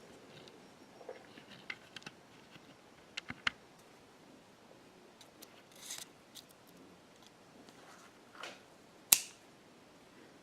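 Scattered small clicks and taps of tools and parts being handled during iPhone 6 reassembly, with a few quick clicks about three seconds in and one sharper, louder click about nine seconds in.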